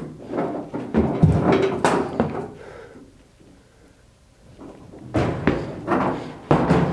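Two spells of irregular knocks, thuds and rustling: the first lasts about two and a half seconds, then after a short lull a second spell starts about five seconds in.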